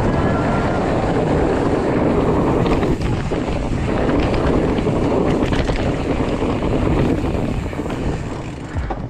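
Wind rushing over an action camera's microphone while a mountain bike rolls down a dirt trail, with scattered small knocks and rattles from the bike; the rush eases a little near the end.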